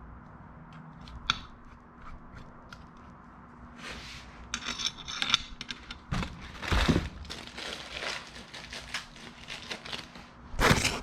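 Hands handling a water pump gasket and bolts: irregular rustling, scraping and small clicks. There are only a few light clicks for the first few seconds, then busier handling with louder bursts near the middle and just before the end.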